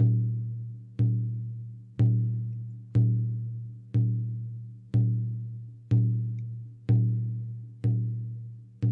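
Slow, steady drumbeat, about one stroke a second, each beat ringing with a low tone that fades away before the next.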